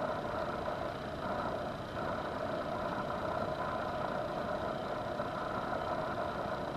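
Steady background hum, like a fan or air conditioning running, with no distinct clicks or handling sounds.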